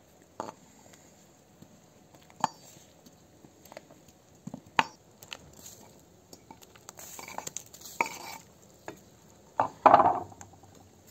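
A wooden cutting board knocking and scraping against the rim of an aluminium cooking pot as garlic cloves and onion pieces are slid off it into the hot broth. There are a few separate sharp knocks, a stretch of scraping, and a louder cluster of knocks near the end.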